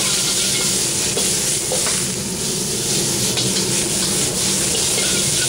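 Vegetables and soy-protein vegan beef sizzling in a wok over a high gas flame while a metal ladle stirs and tosses them, clinking and scraping against the wok now and then. A steady low rumble runs underneath.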